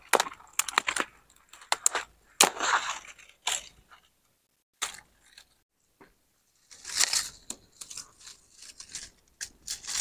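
Dry branches and brush crackling and snapping as firewood is gathered and handled. The sound comes in irregular clusters of sharp cracks and crunches, with short pauses between them.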